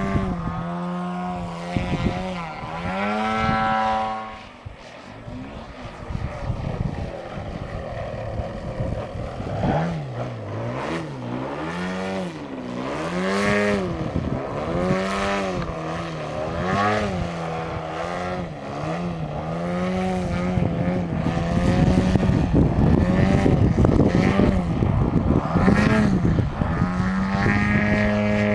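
The twin-cylinder DLE-111 gasoline engine of an Aeroworks Extra 300 radio-control aerobatic plane, with Zimmerman canister mufflers and a 27x10 Mejzlik propeller. Its note swings up and down again and again, then holds steady and grows louder near the end.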